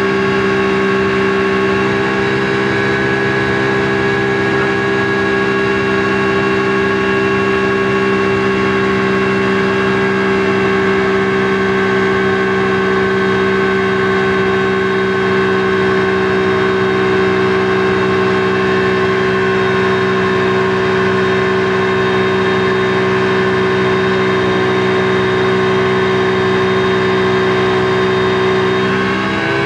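Speedboat engine running at a steady cruising speed, a constant drone that dips briefly in pitch near the end.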